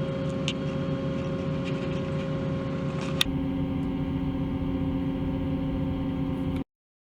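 Steady engine drone of a cable-drawn car ferry, heard from inside its closed cabin, with a sharp click a little past three seconds in. It cuts off abruptly near the end into silence.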